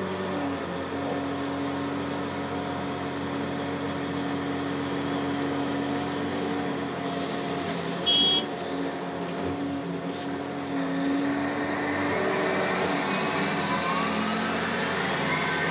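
John Deere 800C LC excavator's diesel engine running under digging load with its hydraulics working, heard from inside the cab. A short loud beep sounds about eight seconds in, and a rising whine builds over the last few seconds.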